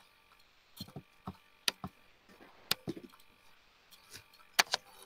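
A few quiet, irregular clicks of a computer mouse and keys, some in quick pairs, as a slideshow is advanced to the next slide.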